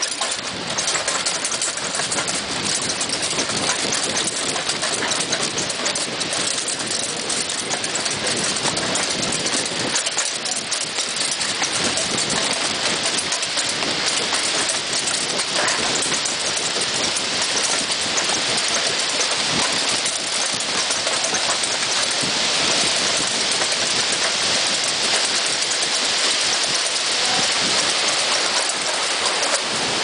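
Bicycle rattling and jolting down rough stone steps and paths, with wind rushing over the microphone: a dense, steady noise full of small clattering clicks.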